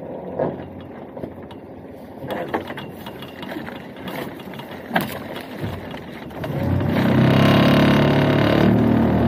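Small fishing boat's outboard motor ticking over under scattered knocks and clatter of gear, then throttled up about six and a half seconds in and running loudly and steadily.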